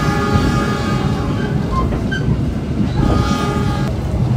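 Passenger train running, heard from inside an economy carriage as a steady low rumble, with a train horn sounding twice: for about the first one and a half seconds and again for about a second near the end.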